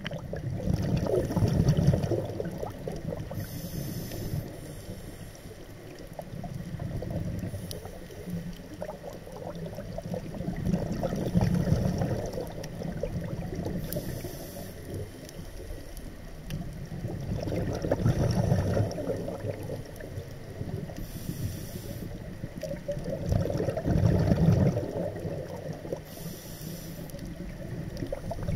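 Scuba diver's regulator breathing heard underwater: a hissing inhalation, then a longer bubbling rumble of exhaled air, repeating about every six or seven seconds.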